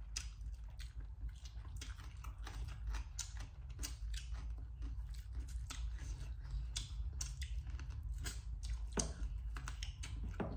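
Close-up chewing and crunching of crispy Korean fried chicken: a quick, irregular run of crisp crackles and clicks.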